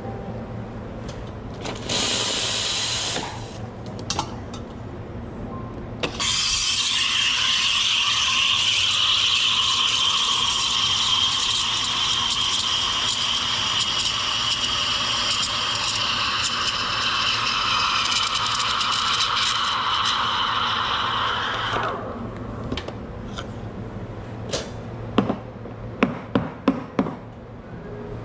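Espresso machine steam wand purged with a short hiss, then steaming milk in a pitcher for about 16 seconds: a steady hiss with a high tone. Several sharp knocks follow near the end.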